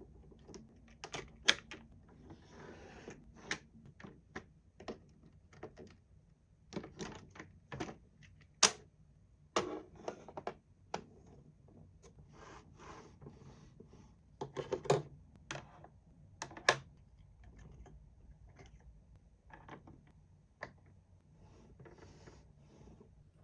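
Plastic toys and packaging being handled: irregular clicks, taps and knocks with some light rustling in between.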